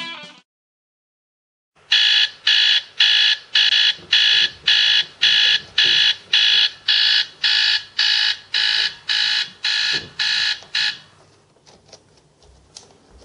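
Electronic alarm clock beeping, rapid high-pitched beeps at about two a second. It starts about two seconds in and stops suddenly near the end, leaving a few faint knocks.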